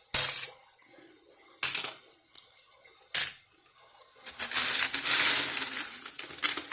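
Coins clattering: a few separate handfuls of change clink and drop during the first three seconds, then a continuous rattle of coins lasting about two seconds near the end.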